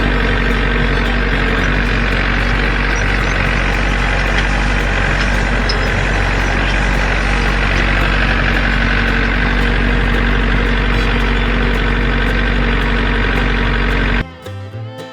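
Tractor engine running steadily at a constant pitch while pulling a hay rake; it cuts off suddenly near the end.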